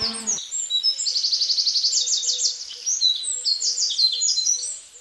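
Guitar music cuts off just after the start, then birds chirp high-pitched: quick runs of short repeated notes, about ten a second, ending suddenly near the end.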